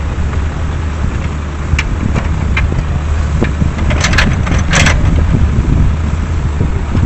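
A heavy diesel engine, most likely the tracked excavator's, running steadily with a low rumble. A few short, sharp knocks or clanks cut in, mostly a cluster between about four and five seconds in.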